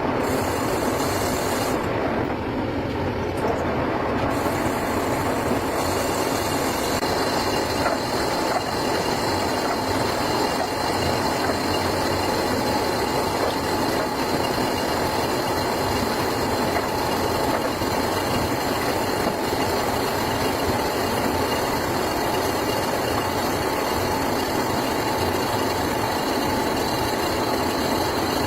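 An engine running steadily, with an even, unbroken mechanical noise and no rise or fall in speed.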